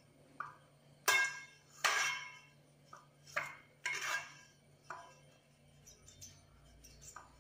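A pastry brush knocking and scraping inside a 7-inch metal cake tin as oil is brushed on: a string of light metallic knocks that ring briefly, about one every half second to second, the loudest in the first half and softer taps toward the end.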